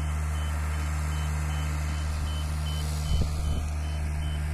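Boatyard travel lift at work: its diesel engine running steadily under a high warning beeper that repeats about three times a second while the yacht is lowered toward the water. There is a brief low knock about three seconds in.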